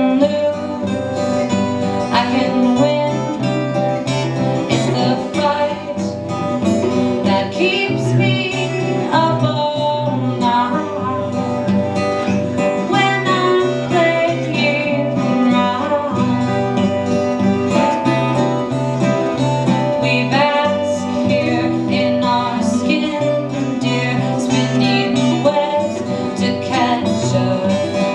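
Two acoustic guitars played together, with a woman singing a song over them.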